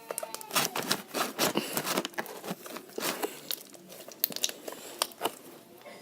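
Homemade borax slime being squished and pressed by hand, making a run of irregular sticky clicks and pops, densest in the first half and thinning out toward the end.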